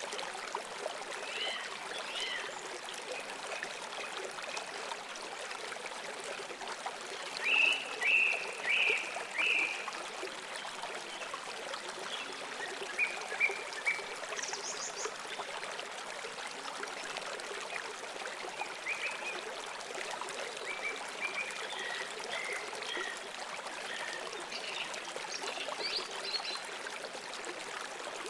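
River water flowing steadily, with birds calling in short chirps over it, loudest in a cluster of calls around eight seconds in.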